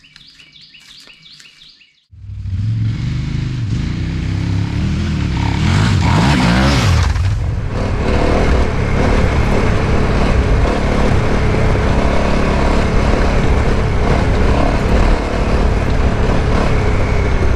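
Birds chirping for about two seconds, then, after a sudden cut, a KTM 990 Adventure R's V-twin engine under way with heavy wind rush on the microphone. The engine climbs in pitch about five to seven seconds in as the bike accelerates, then runs steadily.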